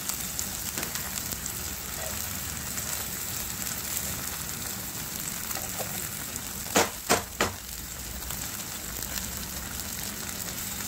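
Eggs sizzling steadily in oil in a frying pan, with three quick scrapes of a steel spatula against the pan about two-thirds of the way through as it is pushed under eggs that have stuck to the pan.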